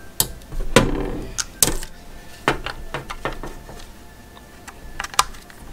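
Irregular sharp plastic clicks and knocks from handling a voltage tester and fitting its test leads into place.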